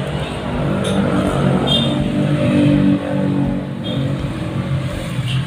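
A motor vehicle engine running with a steady low hum, loudest around the middle.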